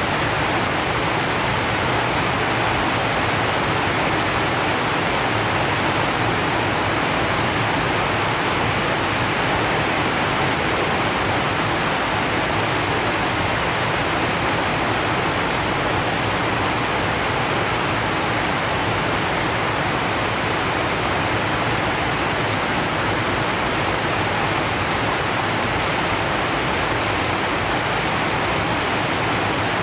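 Rain falling steadily on a zinc sheet roof: an even, unbroken hiss with no single drops standing out.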